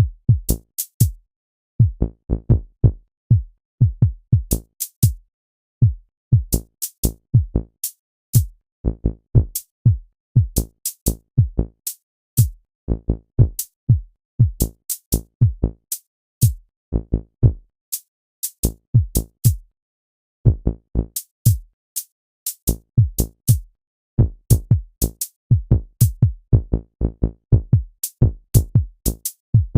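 Electronic drum-machine hits played in irregular clusters with short silences between: low kick-drum thumps that drop quickly in pitch, with a sharp click at the start of many hits. The uneven, patternless rhythm fits sounds triggered at random by a program.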